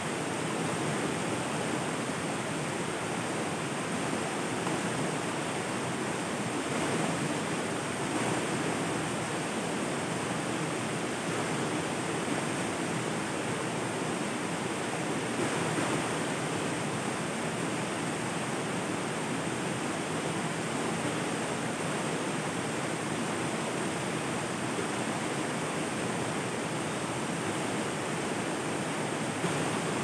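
River water flowing, a steady, even rush that does not pause or change.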